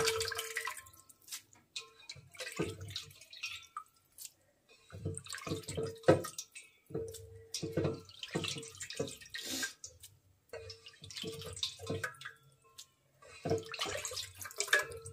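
Water splashing and dripping in irregular bursts as cooked instant noodles are rinsed in cold water and drained.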